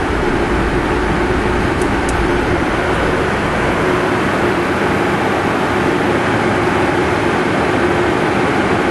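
Steady cockpit noise of a Cessna Citation V Ultra in flight: rushing airflow and the hum of its twin Pratt & Whitney Canada JT15D turbofans, with a steady whine. A deep rumble underneath eases off about three and a half seconds in.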